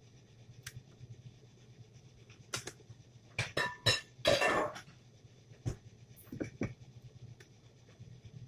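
Metal kitchen utensils clinking against a cast-iron griddle and dishes: a quick cluster of sharp ringing clicks about three and a half seconds in, a short scrape-like noisy burst just after, and a few lighter clicks later, over a low steady hum.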